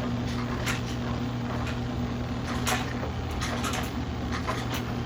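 Washing machine humming steadily just after its spin, with scattered light clicks and knocks.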